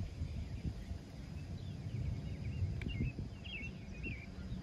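Birds chirping: a run of short whistled notes that bend up and down, clustered in the middle, over a steady low outdoor rumble.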